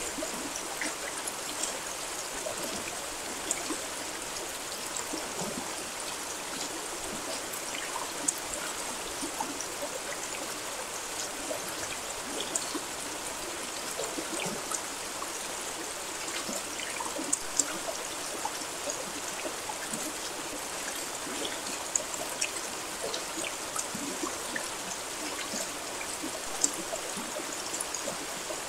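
Steady rain: an even hiss with many sharp, irregular drop ticks scattered through it.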